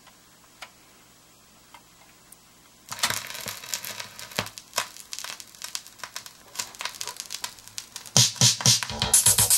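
Stylus of a BIC 960 turntable dropping into the lead-in groove of a vinyl LP about three seconds in, after a few faint clicks from the changer, then crackle and pops of record surface noise. The record's music, with a strong beat, starts loudly about eight seconds in.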